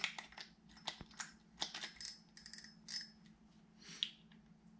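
Light clicks and small metallic clinks of a Daiwa Strikeforce 2500B spinning reel's spool being seated on its shaft and handled, with one short ringing clink about three seconds in.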